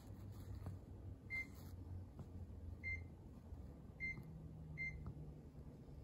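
Mitsubishi room air conditioner beeping four times, short high single beeps a second or so apart, each acknowledging a signal from its remote control, over a low steady hum.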